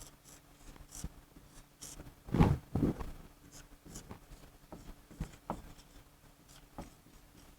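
Writing by hand: short, intermittent scratching strokes of a pen as a chemical equation is written out, with two louder low knocks about two and a half and three seconds in.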